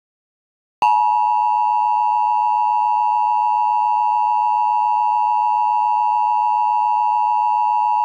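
Emergency Alert System attention signal: the two-tone 853 and 960 Hz alert tone, starting about a second in and holding steady and loud without a break.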